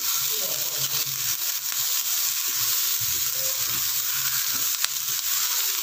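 Chopped beans, carrot, cabbage and onion frying in oil in a nonstick pan, sizzling steadily, with the soft scrape of a wooden spatula stirring them.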